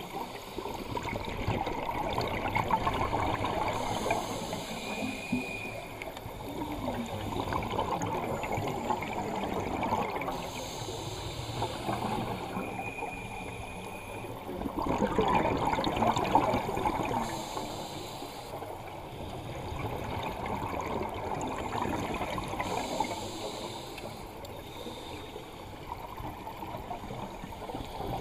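Scuba breathing heard underwater: a hiss from the regulator and gurgling exhaust bubbles, coming and going every few seconds.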